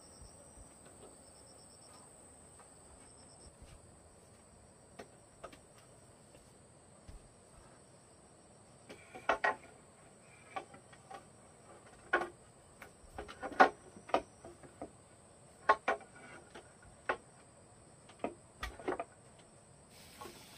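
Bamboo poles knocking and clacking as they are fitted into the posts of a bamboo bed frame: scattered sharp knocks from about halfway through, several in quick succession. A steady high insect call runs underneath, pulsing for the first few seconds.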